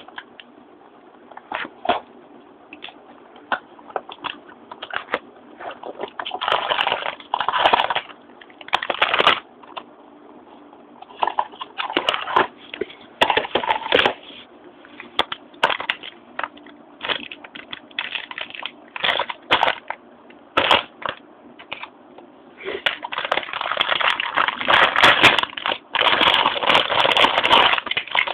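Clear plastic packaging bag crinkling and crackling as it is handled, in uneven spells with sharp clicks in between, the longest and loudest spell near the end.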